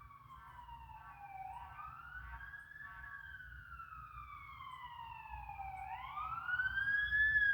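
Fire truck siren wailing, its pitch gliding slowly down and up in long sweeps and growing steadily louder.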